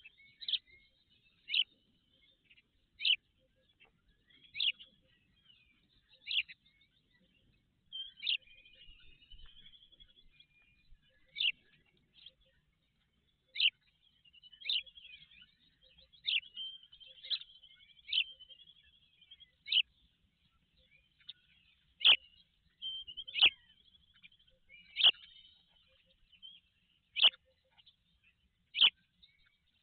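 Bird calling: short, sharp high notes repeated about every one and a half seconds, with softer twittering between them; the calls grow louder in the second half.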